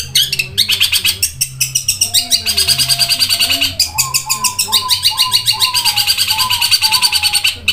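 Caged long-tailed shrike (cendet) singing a fast, unbroken stream of rapid high chirps, its mimicking song. A lower repeated note comes in underneath about four seconds in.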